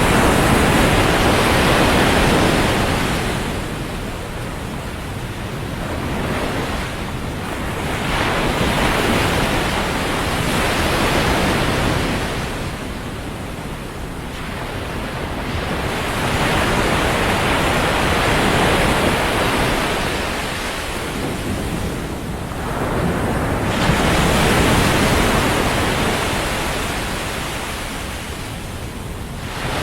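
Ocean surf breaking on a sandy beach, the rush of each wave swelling and fading roughly every six to eight seconds.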